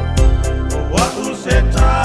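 A man singing a slow song in Samoan over a backing track with bass and a kick-drum beat.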